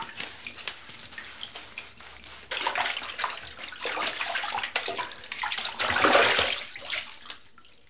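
Water splashing and sloshing in a bathtub as someone bathes and washes, in irregular small splashes. It grows louder about two and a half seconds in, is loudest around six seconds, then dies away near the end.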